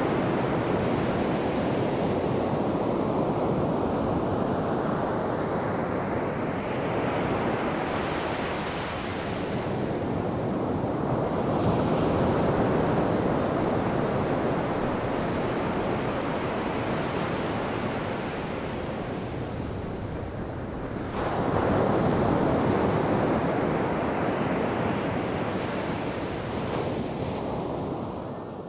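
Ocean surf: waves breaking and washing up the beach in slow, repeated surges, with a stronger break about twelve seconds in and another about twenty-one seconds in. It fades out at the very end.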